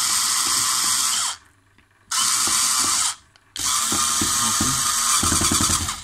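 Ryobi electric screwdriver running in three bursts as it drives a terminal screw on an electric stove's terminal block. The first burst stops about a second in, the next lasts about a second, and the last runs about two seconds.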